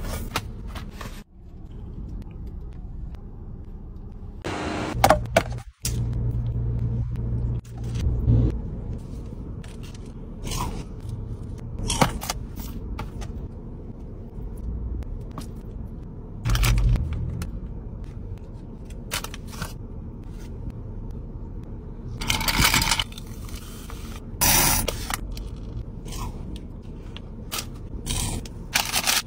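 A series of short scrapes, rustles and knocks as food is handled in a cardboard box and paper wrappers, over a low steady hum.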